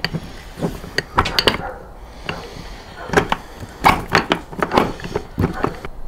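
Irregular sharp clicks and knocks of NP241 transfer case parts being handled by hand: the chain, sprockets and case metal knocking together and against a wooden workbench.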